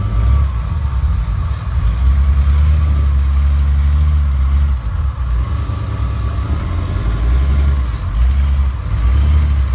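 Big swamp buggy's engine running at low revs close by, a deep steady hum whose revs dip and rise again several times.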